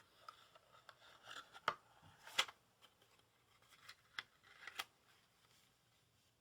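Handling of a deck of playing cards and its box: soft rustling and scraping with several sharp clicks and snaps, the last two close together near the end.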